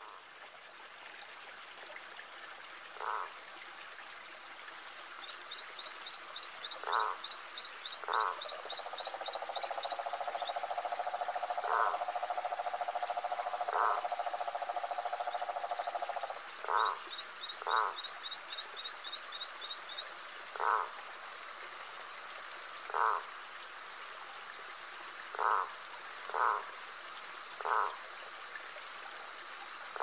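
Frogs calling: short single croaks every second or two, with a long steady trill for about eight seconds in the middle. Two runs of rapid high ticking and a thin steady high tone sit behind them.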